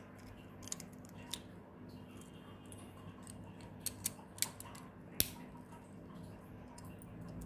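Small plastic LEGO-type bricks clicking as they are handled and pressed together: a few short, scattered clicks, with a cluster around four seconds in and the sharpest at about five seconds.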